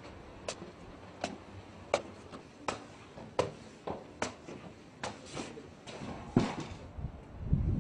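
Footsteps climbing stone stairs, a steady step about every three-quarters of a second. Near the end, wind starts buffeting the microphone.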